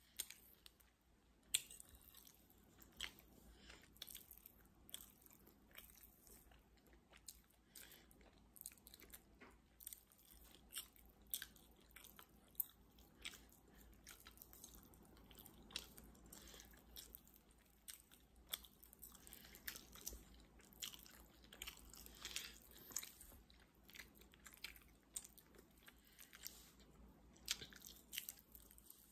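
A person chewing food with mouth smacks: many short, irregular wet clicks, quiet and continuous.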